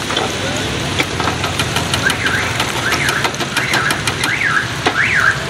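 Wire skimmer clicking and scraping in a steel frying pan of corn kernels over a steady low rumble. From about two seconds in, a rising-and-falling warbling tone repeats about twice a second, like a car alarm.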